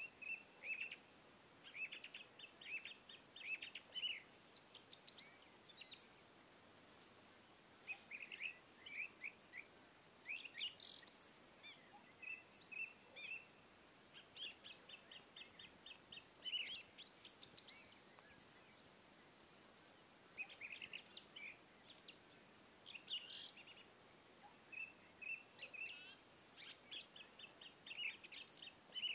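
Small songbirds chirping and trilling in quick high phrases, with short pauses between them: a birdsong ambience track.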